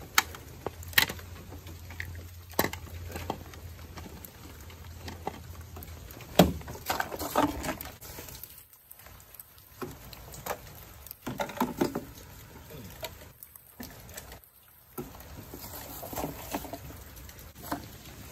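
Scattered sharp plastic clicks and knocks, with rustling in short clusters, as toy mini wheelie bins are gripped by a plastic grabber arm on a pole, lifted and tipped into a plastic wastebasket. Light rain patters throughout.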